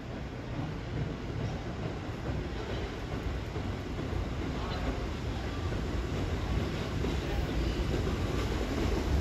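New York City subway train rumbling along the tracks, growing steadily louder as it approaches.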